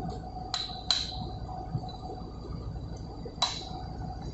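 Three sharp metallic taps with a short ringing note, twice close together about half a second in and once more near the end: a brass drift being struck to bend a locking plate up against a bolt head so the bolt cannot turn.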